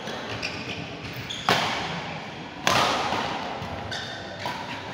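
Badminton rally: rackets hitting a shuttlecock three times, a second or two apart, each sharp hit echoing in a large hall, with short high squeaks from shoes on the court between them.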